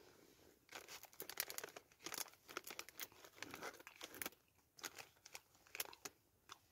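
Crinkling and rustling of a plastic biscuit wrapper being handled: a run of quick, irregular crackles that starts about a second in and goes on for several seconds.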